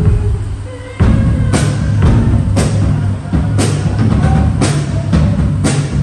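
Drum kit played for a sound check, heard through the PA in a reverberant hall: a slow, steady beat with a sharp hit about once a second over a heavy low boom.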